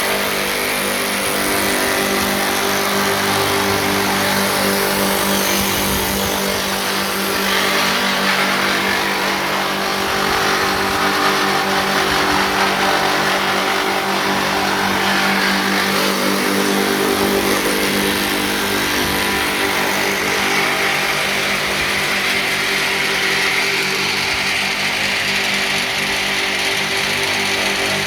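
Four-sided wood milling machine for turning poles into bars, running: a steady hum from its electric cutter motors with a constant hiss above it.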